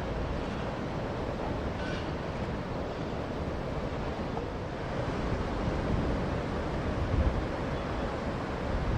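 Ocean waves breaking in a steady wash, with wind rumbling on the microphone; a little louder about seven seconds in.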